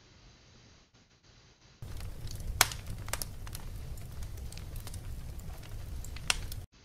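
Scattered sharp clicks and crackles over a low rumbling noise. It starts about two seconds in and cuts off suddenly near the end.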